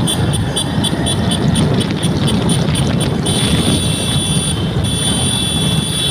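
Vehicle travelling at speed through a road tunnel: a steady low rumble of engine and road noise, with a high steady whine joining about three seconds in.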